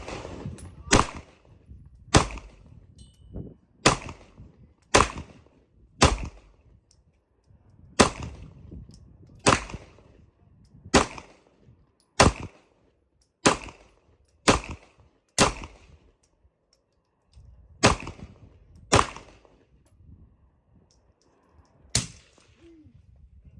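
About fifteen single gunshots, each a sharp crack with a short echo, fired at a steady, deliberate pace about one to two seconds apart, with a longer pause before the last two.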